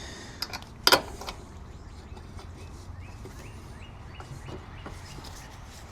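A sharp click with a few lighter ticks about a second in as the brake caliper is fitted. Then a faint bird gives a run of short rising chirps.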